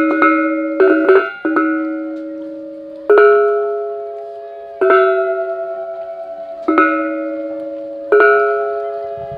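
Balinese gamelan bronze metallophones striking loud unison chords: a quick cluster of strokes near the start, then single strokes every one and a half to two seconds. Each chord rings on and fades slowly with a fast wavering shimmer.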